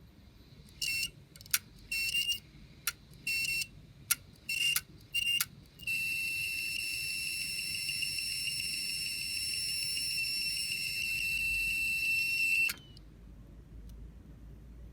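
Failing hard disk drive making an abnormal noise: a series of short, high-pitched squealing beeps mixed with sharp clicks, then one long steady high-pitched whine for about seven seconds that cuts off suddenly. Such a noise from a hard disk is the sign of a mechanical fault inside the drive.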